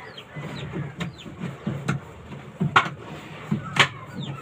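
Hammer blows driving nails into plywood planking on a small wooden boat hull, the two loudest about a second apart in the second half. Chickens chirp in the background.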